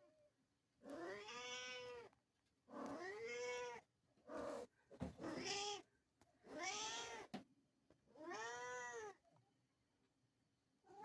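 Bengal cat meowing repeatedly: about six drawn-out meows, each rising then falling in pitch and about a second long, one every second and a half or so.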